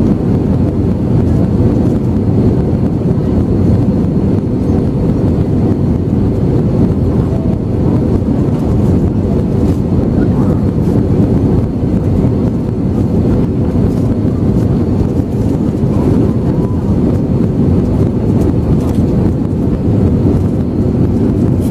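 Steady cabin noise inside an Airbus A320neo on approach: a deep, even rush of air over the fuselage mixed with the hum of the engines, with a faint thin whine above it.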